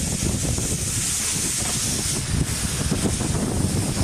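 Narrow-gauge saddle-tank steam locomotive running slowly with a steady hiss of steam escaping low at its front, under a low rumble of wind on the microphone.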